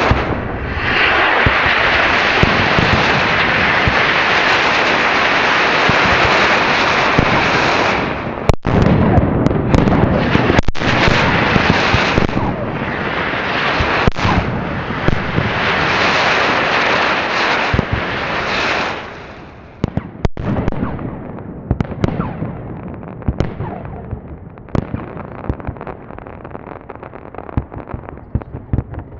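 A homemade battery of 27 Weco rockets chain-fired by tape match. The rockets launch together with a dense rushing hiss for about eight seconds. Bangs and crackling bursts follow overhead, thinning after about twenty seconds to scattered, fading pops and crackles.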